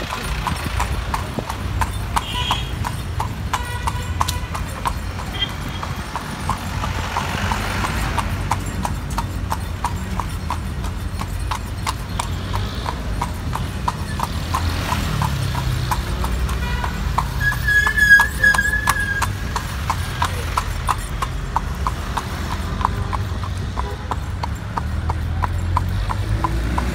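Horse's hooves clip-clopping in a steady rhythm on the paved road, over the low rumble of city traffic. A short high beep sounds about two-thirds of the way through.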